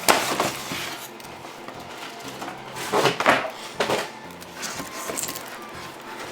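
A few short clattering knocks of a plastic computer keyboard being handled and shifted: one right at the start, and a louder cluster about three to four seconds in.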